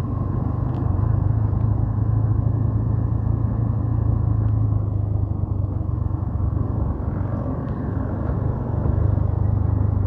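Motorcycle engine running at low road speed, a steady low drone with road rumble from the paving stones. It eases off briefly about seven seconds in, then picks up again.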